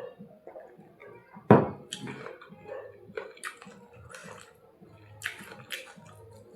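Close-up wet eating sounds of chicken curry being eaten, with irregular squelching and smacking, the loudest about a second and a half in.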